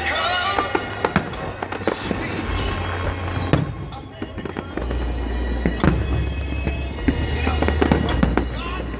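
Aerial fireworks shells bursting in a public display: repeated sharp bangs and crackling, the loudest bang about three and a half seconds in, over a steady low rumble.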